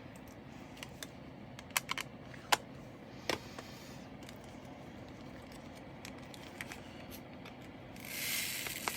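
Diamond painting drills and small plastic bags being handled: several sharp clicks and taps about two to three seconds in, then a short plastic rustle near the end.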